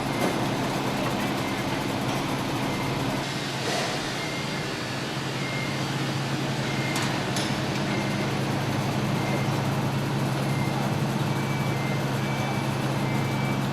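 Heavy construction machine's engine running steadily. In the second half, a faint reversing alarm beeps about once a second.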